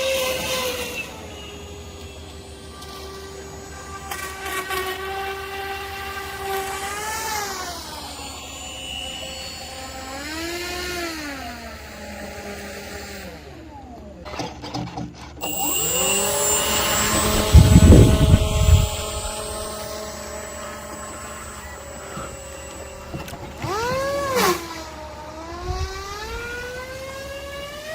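RC airboat's 10-inch propeller buzzing steadily, its pitch sweeping up and down several times as the throttle is opened and eased off. A loud low rumble breaks in about two-thirds of the way through.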